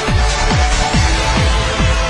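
Electronic dance music with a steady, pounding kick-drum beat, about two and a half beats a second.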